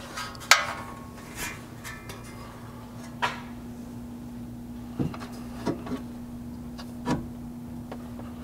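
Short metal knocks and clinks, about eight scattered ones with the loudest about half a second in, as a roof-rack upright plate is handled and set against its mounting bracket on the vehicle body. A steady low hum runs underneath.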